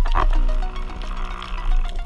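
A spearfisher's fish call: short throaty grunts made underwater to draw fish in, heard through the water at the start. Music with held tones runs underneath.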